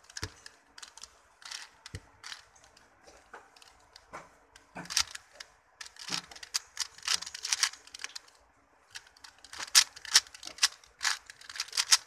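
4x4 Rubik's cube being turned by hand while building its centers: plastic clicks and clacks of layer turns. The clicks are scattered for the first few seconds, then come in quick runs of turns, with a short pause about eight seconds in.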